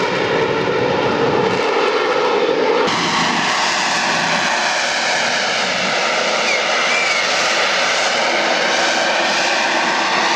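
Royal Navy Sea Harrier FA2's Rolls-Royce Pegasus jet engine running loud during its flying display. The jet noise has a swirling, sweeping tone as the aircraft moves, and it turns brighter and less deep about three seconds in.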